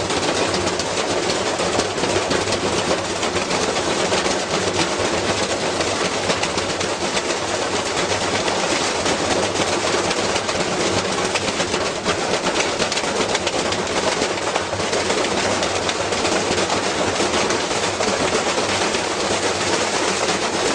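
Washing machine spinning with a heavy object inside, shaking itself apart: a rapid, continuous rattling and banging of drum and cabinet at a steady level.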